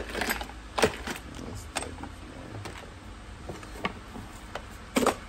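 Scattered sharp clicks and clinks of small hardware being handled, the loudest about five seconds in, over a steady low background hum.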